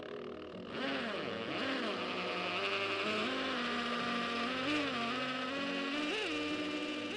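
Cordless drill running under load at a handrail post's base plate on concrete, its motor pitch dipping and rising several times as it works.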